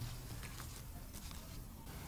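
Faint soft rustling and a few small ticks of gloved fingers picking shredded mozzarella out of a glass bowl, over a low steady hum.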